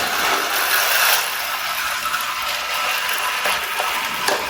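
Battery-powered Thomas & Friends toy train running, its small motor and plastic gears making a steady ratcheting whirr, with a few sharp clicks near the end.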